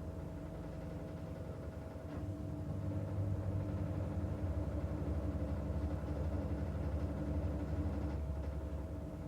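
Washing machine running through its wash cycle: a steady motor hum with a fine rapid pulsing, growing louder from about two seconds in until near the end as the drum turns.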